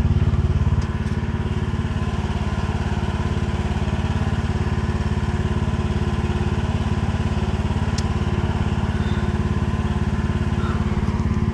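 An engine idling steadily, its pitch and level unchanged.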